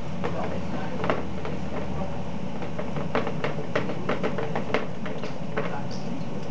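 Screw cap being twisted onto a metal water bottle: a run of small clicks and ticks, thickest between about three and five seconds in, over a steady low hum.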